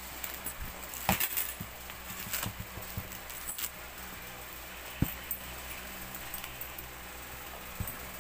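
Handling noise from a quilted leather handbag being turned over on a table: scattered taps and knocks, with its metal chain strap clinking. The loudest are a cluster of knocks about a second in and a sharp knock about five seconds in.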